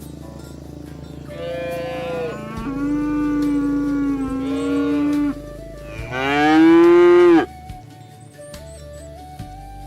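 Cattle mooing twice: a long, drawn-out moo of about four seconds, then a shorter, louder one that ends abruptly.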